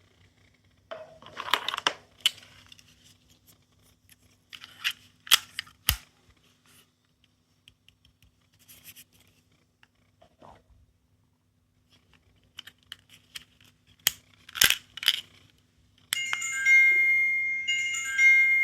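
Clicks and rustling from handling small plastic capsule toys. Near the end a small electronic toy starts playing a high, beeping, ringtone-like tune.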